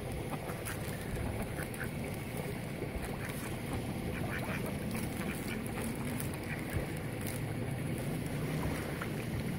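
Mallard ducks quacking at intervals over a steady background hiss.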